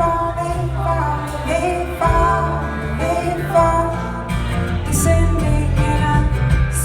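Live acoustic folk band playing: plucked strings and a bass line under a held, gliding melody.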